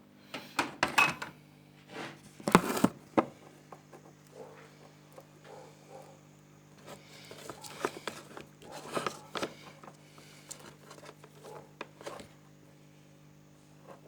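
Handling noises on a workbench: a string of small clicks, knocks and rustles, the loudest clatter about two and a half seconds in, over a steady low hum.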